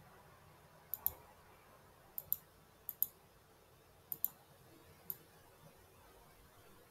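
Computer mouse clicking: four pairs of sharp clicks in quick succession, about a second apart, then a single click about five seconds in.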